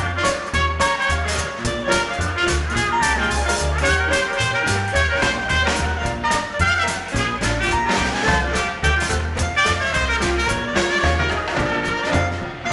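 A small swing band playing live: string bass and drums with cymbals keep a steady beat while trumpet and saxophone carry the lines.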